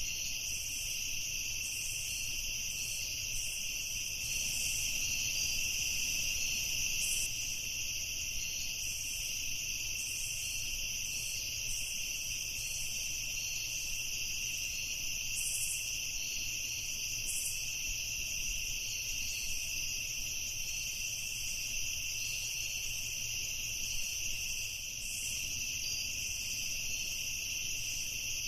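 Night chorus of crickets trilling continuously at a high pitch, with two steady high bands of sound and a faint low hum underneath.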